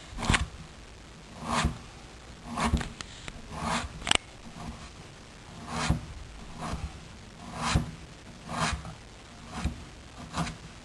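A kitchen knife slicing raw papaya thinly on a cutting board: a short scraping stroke about once a second, ten or so in a row.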